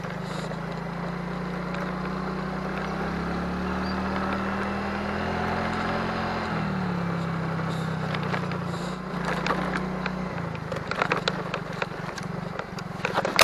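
Small motor scooter engine running steadily while riding, its pitch creeping up and then dropping about six and a half seconds in. From about eight seconds on come scattered rattles and knocks as the scooter goes over rutted, potholed dirt track.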